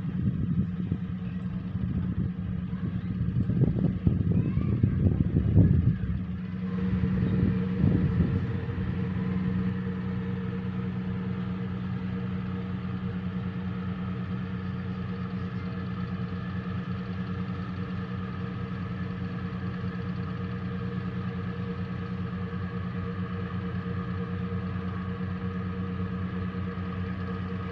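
Steady drone of a boat engine, a low hum with a higher whine above it, holding at one speed. For the first eight seconds or so it is partly buried under loud, irregular low buffeting.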